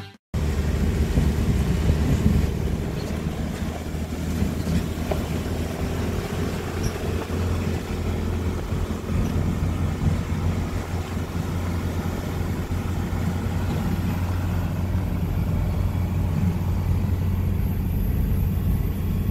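A car driving, heard from inside the cabin: a steady low rumble of engine and tyres.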